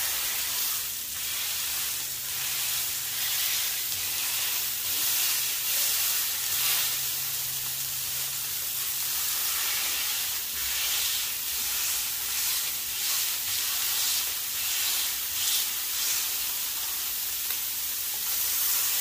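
Ground beef sizzling in butter on a Blackstone flat-top griddle at searing heat as the balls are smashed thin with a spatula, a steady frying hiss with faint scrapes of the spatula on the steel plate.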